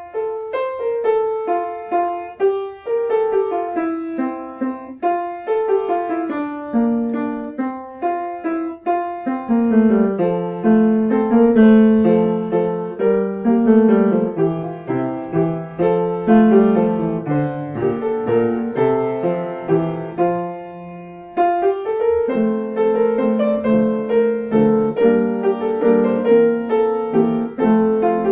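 Solo piano playing a postlude, a steady flow of struck notes with chords underneath. There is a short pause about twenty seconds in, then the playing picks up again.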